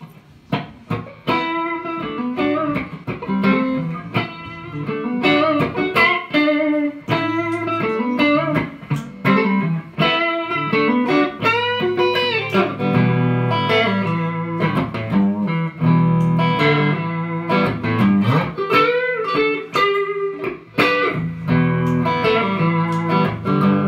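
Stratocaster-style electric guitar played solo: quick picked lead lines with string bends, the low notes growing fuller about halfway through.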